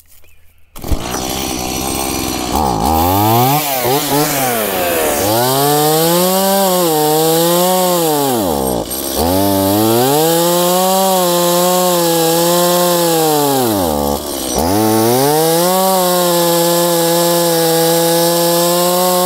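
Stihl MS170 two-stroke chainsaw running, its engine speed repeatedly sagging almost to a stall and picking back up, then holding steady near the end. This is the saw bogging down, which the owner suspects may come from a clogged air filter or spark arrester.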